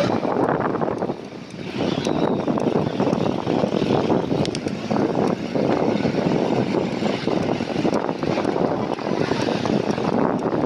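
Steady rushing noise of wind on the microphone mixed with street traffic, heard while riding a bicycle along a city road; it briefly drops about a second in.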